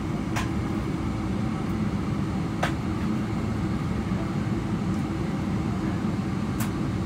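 Boeing 777-300ER cabin noise during taxi: a steady low drone from the GE90 engines at taxi thrust, with three light clicks, about half a second in, about two and a half seconds in and near the end.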